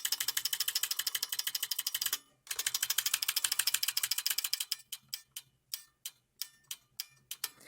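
Buckling-spring key on a Brand New Model F keyboard clicking, in two fast runs of about a dozen clicks a second and then in slower single clicks. The spring is not buckling properly, which gives the key a bad, tinny sound.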